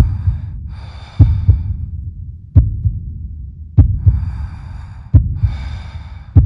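Heartbeat sound effect: slow, heavy double thumps about every second and a quarter, with loud breathing between the beats.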